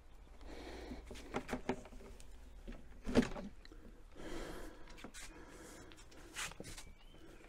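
Handling noise from a folding solar panel being moved and opened out: scattered light clicks and knocks with rustling. A louder knock comes about three seconds in and a sharp click near the end.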